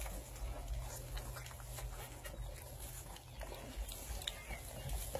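25-day-old Catahoula Bulldog puppies eating soft dog food mixed with goat milk from a pan: many small wet lapping and smacking clicks, irregular and overlapping.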